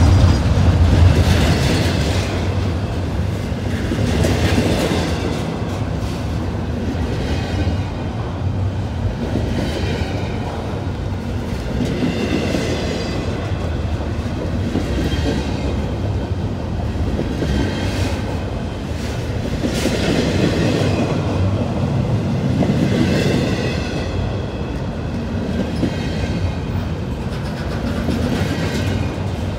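Freight train of double-stack container cars rolling past close by: a steady rumble of steel wheels on the rails, with a clatter that comes round every couple of seconds as the wheels of each car pass.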